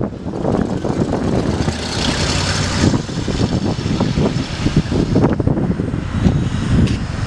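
1962 Ford Thunderbird's 390 cubic inch V8 running as the car drives past and away, a steady low engine and exhaust rumble with tyre hiss that is strongest about two to three seconds in.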